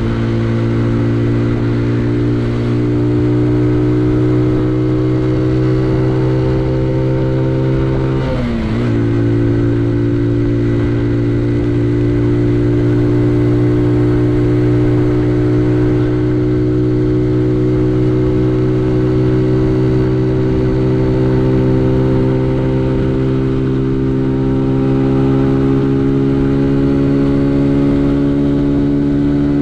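Benelli Leoncino 125's single-cylinder four-stroke engine running under way, its pitch climbing slowly. About eight and a half seconds in, the note breaks and drops briefly with a gear change, then keeps rising slowly.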